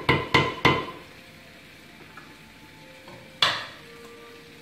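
Wooden spatula knocked four or five times in quick succession against a stainless steel pot, which rings briefly after each knock. About three and a half seconds in there is one more sharp knock as the spatula is set down.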